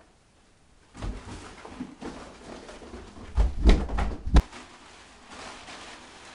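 Cardboard and shredded paper rustling as they are handled, with a cluster of heavy thumps about three and a half seconds in, the loudest sound, ending in a sharp knock a second later as cardboard bumps close to the microphone.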